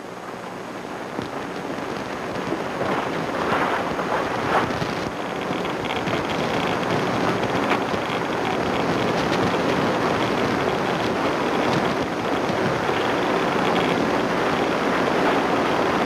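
A steady rushing, wind-like noise that swells gradually over the first several seconds and then holds, with a few faint clicks in it.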